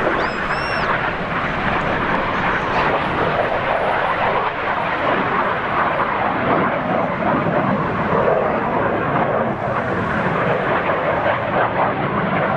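BAE Hawk T1 jets' Adour turbofan engines making a steady, loud rushing jet noise as they fly a display pass. A brief high pitched call wavers up and down at the very start.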